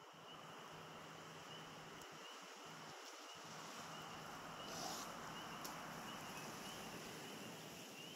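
Faint, evenly repeated high chirps from frogs calling, about one every three quarters of a second, over a steady hiss.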